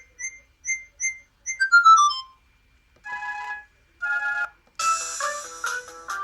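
Sagem my150X mobile phone playing its ringtones: one ends in quick runs of electronic notes, up to repeated high beeps and back down, about two seconds in. Two short buzzy chord-like tones follow, and about five seconds in a fuller tune with several notes at once starts.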